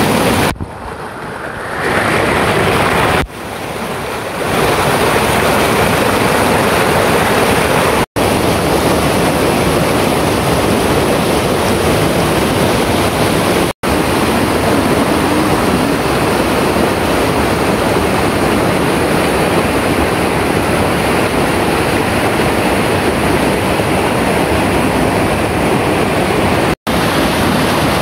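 A rocky mountain stream rushing and splashing over boulders: a loud, steady rush of water. It is quieter for two short stretches near the start and drops out for an instant three times.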